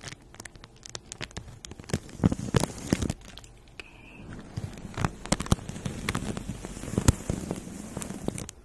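A sheet of paper crinkling and rustling right against the phone's microphone, with a marker scratching and tapping on it. The crackles come in two busy spells with a short lull between them.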